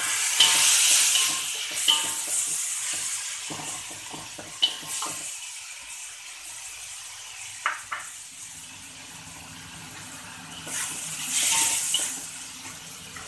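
Shallots, green chillies and kepayang seeds sizzling in a metal wok, pushed around and scraped with a wooden spatula. A loud hiss of frying near the start and again near the end, with a few sharp knocks of the spatula against the wok in between.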